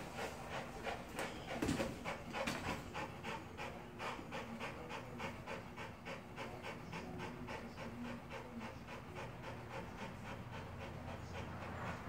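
A dog with epilepsy panting rapidly, about four breaths a second, in the wake of a seizure. The panting is heaviest in the first few seconds, then grows fainter.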